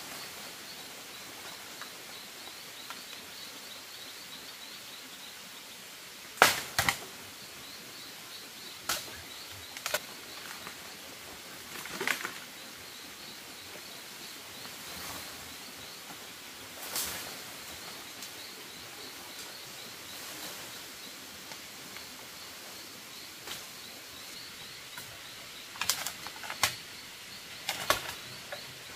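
Irregular sharp knocks and cracks of bamboo being worked, a few seconds apart with a quick cluster near the end, over a faint steady high chirping in the background.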